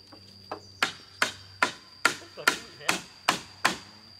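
Hammer driving a nail into a wooden plank on a bamboo frame: one light tap, then eight steady blows at about two and a half a second. A steady high-pitched insect drone runs underneath.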